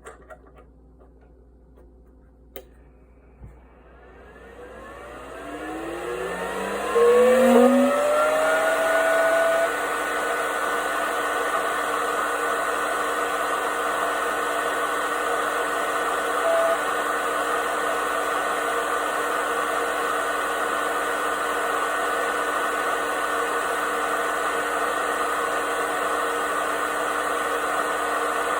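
Electric air compressor unit switched on with a few clicks, its motor spinning up with a rising whine over about six seconds, then running steadily.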